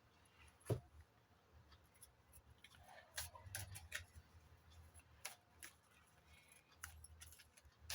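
Tarot cards being handled and laid down on a table: faint scattered clicks and soft snaps of card stock, with one sharper click about a second in and a small cluster a few seconds in.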